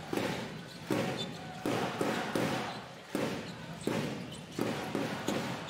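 Basketball dribbled on a hardwood court in an arena: about eight bounces a little under a second apart, each with a short echo.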